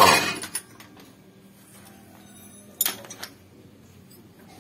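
Impact wrench on a clutch cover bolt, finishing a short loud burst and cutting off just after the start. About three seconds in there is a short clatter of metal clinks.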